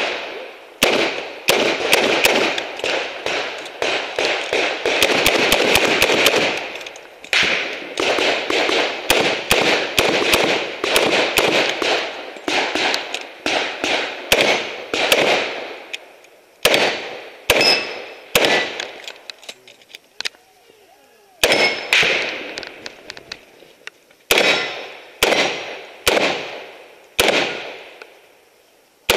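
Revolver shots fired in quick strings, heard close and loud from the shooter's own hat-mounted camera. The shots come thick and fast through the first half, then further apart with a pause of about two seconds past the middle, and a few more shots follow near the end.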